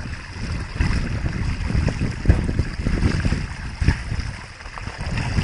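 Water running through an opening in a mud field channel, with wind buffeting the microphone in uneven low rumbles that rise and fall.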